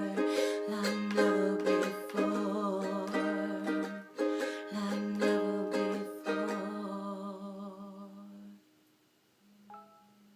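Closing instrumental bars of a song: strummed acoustic string chords that ring out and fade about eight and a half seconds in, followed by one faint, brief note near the end.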